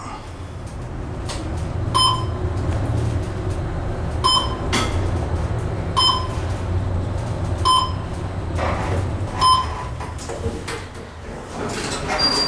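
Schindler traction elevator car running with a low rumble, while its fixtures give five short electronic beeps about two seconds apart.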